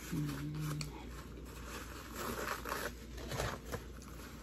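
A short closed-mouth hum at the start, then soft crinkling and rustling of a paper napkin handled in the hands, with a few small clicks.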